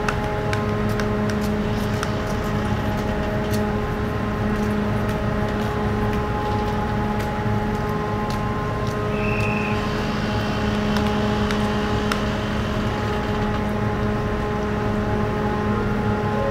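Car ferry's engines and machinery running with a steady hum of several tones, with scattered light clicks and knocks and a brief high beep about nine seconds in.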